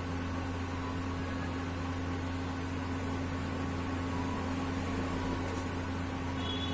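Steady hum of an electric fan running, a low even drone with a light hiss over it.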